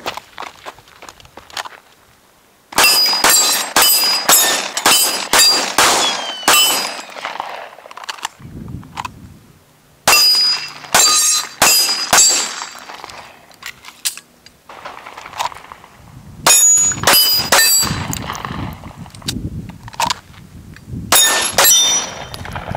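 Handgun fired in four quick strings of shots, each shot followed by the high ringing ping of steel plate targets being hit, with short pauses between the strings.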